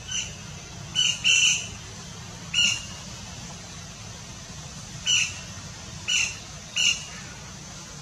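Flameback woodpeckers giving short, harsh squawking calls, about seven in all at uneven intervals, the longest a little over a second in, over a steady low background rumble.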